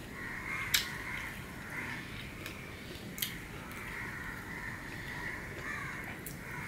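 Crows cawing repeatedly, with two sharp clicks, one just under a second in and a fainter one about three seconds in.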